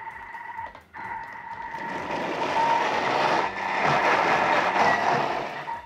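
Jet airliner take-off sound effect: a steady high whine joined by a roar that builds up and cuts off suddenly near the end.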